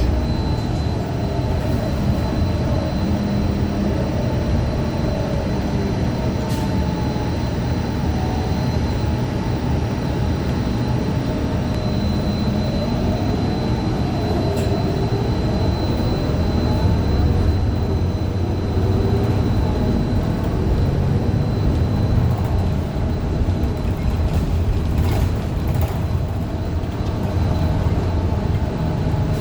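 Heard from inside a moving 2015 Gillig low-floor CNG transit bus: the Cummins Westport ISL G engine and Allison B400R transmission run with a heavy low rumble. The drivetrain pitch rises and falls as the bus speeds up and slows, and a thin steady high whine and a few brief rattles run alongside it. The transmission is one the uploader calls bad ("messed up").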